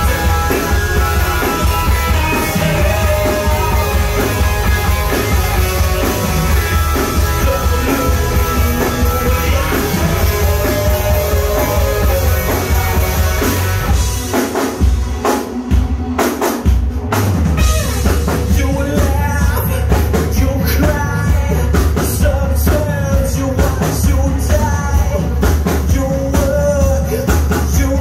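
A live rock band playing: electric guitar, bass guitar and a drum kit, with a male vocalist singing. About halfway through, the bass drops out for a few seconds of sharp stop-start hits, then the full band comes back in.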